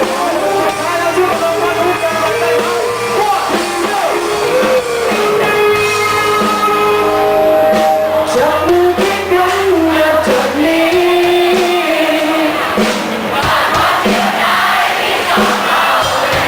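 A band playing a rock song with a lead vocalist singing over guitar and bass. In the last few seconds the crowd shouts along over the music.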